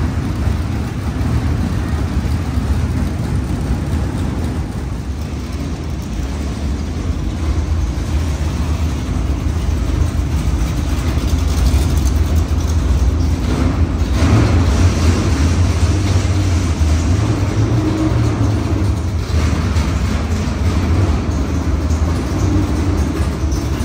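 Dirt-track modified race car engine running loudly at low revs while the car moves slowly across the shop floor, a little louder from about halfway through.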